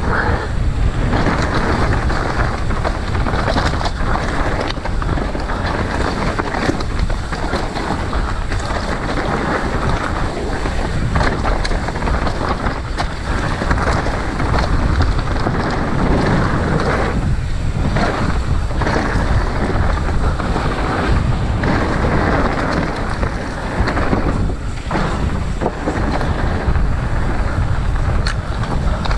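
Heavy wind buffeting an action camera's microphone during a mountain-bike trail ride, over a steady rumble with frequent short knocks and rattles from the bike on rough ground.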